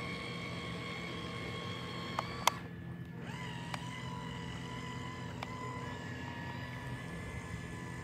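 Small electric motors of radio-controlled toy speedboats whining steadily. The whine cuts out for a moment right after two sharp clicks about two and a half seconds in, then rises back, with a couple more faint clicks later.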